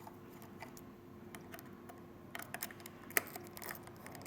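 Small, light metallic clicks and ticks of a flathead screwdriver working the post screws on an RTA's build deck, irregular, with one sharper click a little after three seconds in.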